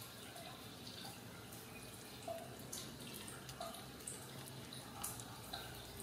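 Faint, scattered wet clicks and smacks from very young Ragdoll kittens, with a few short soft squeaks among them, about half a dozen over a few seconds.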